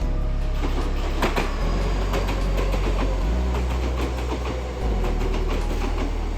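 Kintetsu Minami-Osaka Line electric train passing, with a run of short sharp clicks and knocks from the running gear over a steady low hum.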